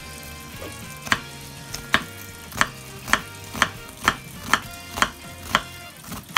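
Kitchen knife slicing into a halved onion and knocking on a bamboo cutting board, as the onion is cut for mincing. The cuts come in an even run of sharp knocks, about two a second, starting about a second in.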